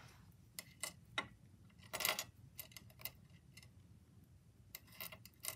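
Small metal jewelry pieces clicking and clinking as they are handled and set down on a hard countertop: a scattered run of light ticks, bunched about two seconds in and again near the end.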